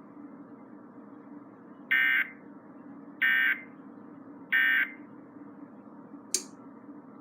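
Three short bursts of warbling digital data tones from a NOAA Weather Radio broadcast: the EAS/SAME end-of-message signal that closes a warning. Each burst lasts about a third of a second, a little over a second apart, and a single sharp click follows near the end over a steady low hum.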